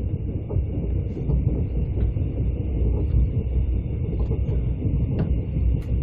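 Mugunghwa passenger train running, heard from inside the carriage: a steady low rumble of wheels on track with a few faint clicks.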